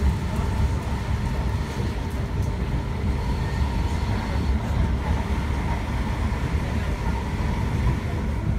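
Class 365 electric multiple unit running at speed, heard from inside the passenger cabin: a steady low rumble of wheels on rail with a faint steady whine.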